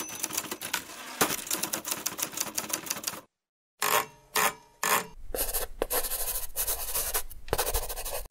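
Typewriter keys clattering in quick succession. After a short pause come three heavy single strikes about half a second apart, then more clatter.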